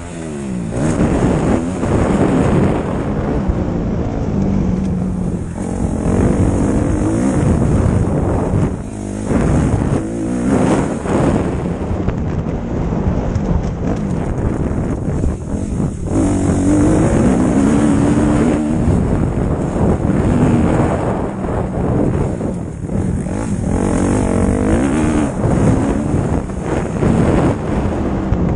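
Motocross bike engine heard on board, revving up and falling back over and over as the throttle is opened and closed through the gears, with short throttle cuts every few seconds. Wind buffets the microphone throughout.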